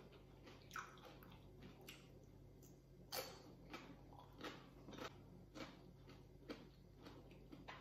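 Faint close-up chewing of a crisp raw vegetable stick: a string of soft crunches about every half second, the loudest about three seconds in.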